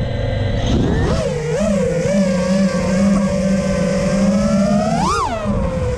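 FPV freestyle quadcopter's brushless motors buzzing. The pitch lifts and wobbles with throttle changes from about a second in, then surges into a sharp rising-and-falling whine about five seconds in.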